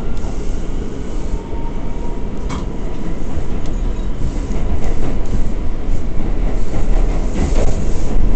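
Inside an R179 subway car on the move: the train runs at speed with a steady rumble of wheels on the track and scattered clicks from the rails. It gets louder about five seconds in.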